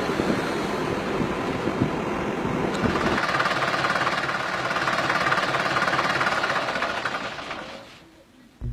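An old vehicle's engine running with road noise while it is driven, heard from inside the cab. The noise changes about three seconds in and fades out near the end.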